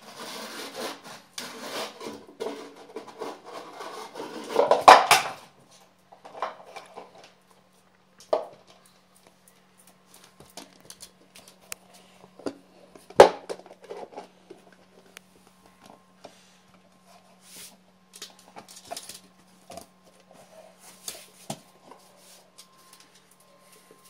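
Small plastic flowerpot pushed, scraped and knocked about on a tile floor by a pug: a dense run of scraping and rattling, then scattered clicks and knocks, two of them loud, about five and thirteen seconds in.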